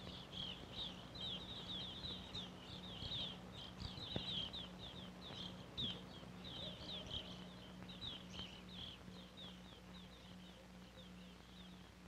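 A flock of evening grosbeaks chirping faintly: quick, short, high notes, several a second, thinning out and fading away toward the end.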